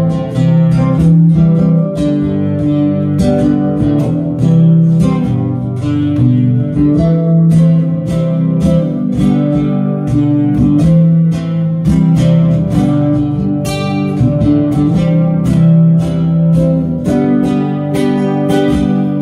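Solo acoustic guitar played spontaneously: strummed chords and plucked notes in a steady, busy rhythm over ringing bass notes.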